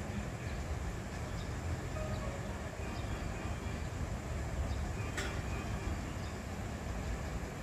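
Hankyu 1000 series electric train pulling into the station, a steady low rumble. A single sharp click sounds about five seconds in.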